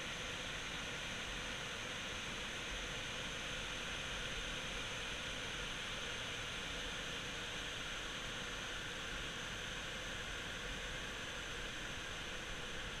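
River whitewater and a low waterfall over rock ledges, with a dam spillway behind, rushing steadily at low flow.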